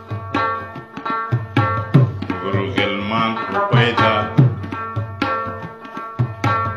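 Instrumental passage of a Pashto song: tabla strokes with swooping bass-drum notes under a sustained melody instrument, with no singing.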